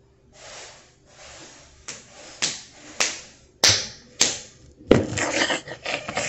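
A child scuffling about on the floor and onto a hoverboard: rustling and swishing, a run of six sharp smacks about every half second, then denser scraping near the end.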